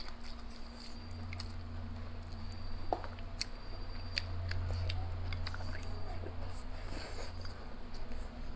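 Close-up eating sounds: a person chewing and smacking on braised crucian carp and rice, with scattered light clicks of wooden chopsticks picking through the fish and bowl. A low steady hum runs underneath.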